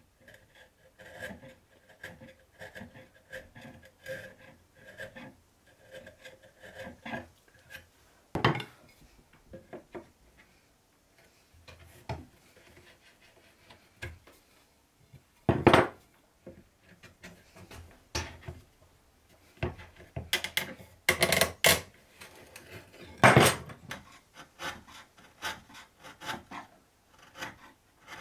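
Hand file scraping wood in steady strokes, a little under two a second, working the notch of a halving joint in a wooden frame piece. Several sharp knocks of wood on wood follow as the pieces are handled and fitted, then lighter scraping strokes near the end.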